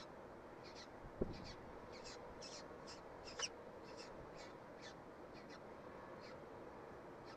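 Faint, short, high peeps about twice a second from a downy peregrine falcon chick begging while it is fed, over a steady background hiss, with a single thump about a second in.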